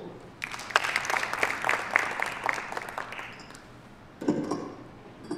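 Audience applause, a few seconds of scattered clapping that dies away. A short low bump follows about four seconds in.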